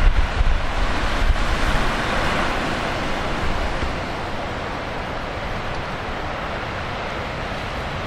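Heavy typhoon surf breaking along a breakwater and tetrapod rocks, with strong wind gusting on the microphone. The wind rumble is heaviest in the first second or so, and the whole sound eases slightly about halfway through.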